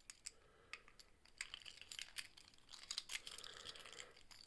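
Faint, scattered metallic clicks and ticks as an ERA 975 five-lever padlock is handled and relocked.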